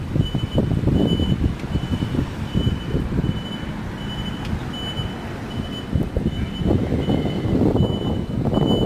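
Electric tram-style bus moving slowly, its warning system sounding a steady high beep about one and a half times a second over a low rumble.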